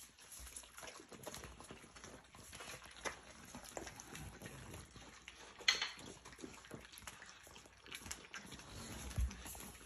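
Two Yorkshire terriers and a Shih Tzu eating wet food from small bowls: faint chewing, smacking and licking, with a few sharper clinks of a bowl, the loudest a little past halfway.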